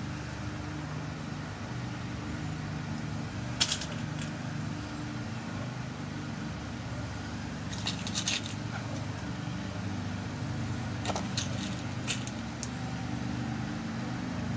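Small light clicks and taps of tiny key pins being set into the pin chambers of a lock cylinder while it is loaded with a new key code. The clicks come singly and in short clusters, a few seconds apart, over a steady low hum.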